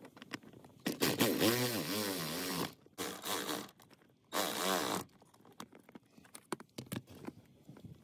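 Electrical tape being pulled off the roll in three pulls, a long one and two short ones, each a raspy squeal that wavers up and down in pitch, followed by light handling clicks.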